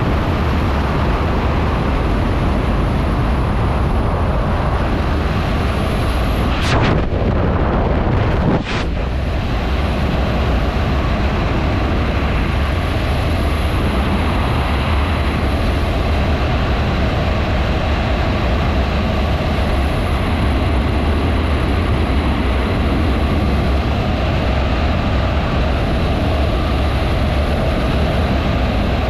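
Freefall wind rushing over a skydiver's helmet-mounted camera microphone: a loud, steady noise, with a brief shift in the rush about seven to nine seconds in.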